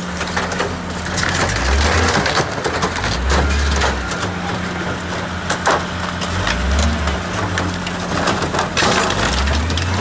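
An old car body crumpling under a hydraulic car crusher's descending steel lid: many sharp cracks, creaks and glass breaking over the steady hum of the machine.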